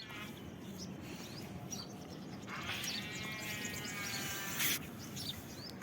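Birds chirping over steady outdoor background noise. A buzzing sound with a rich, wavering tone enters about halfway through, lasts about two seconds, and ends in a brief hiss.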